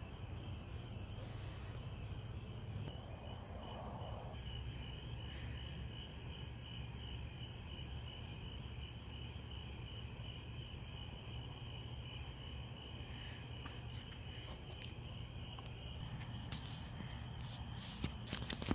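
Crickets chirping steadily in a continuous, finely pulsing trill, over a low rumble. A few sharp clicks sound near the end.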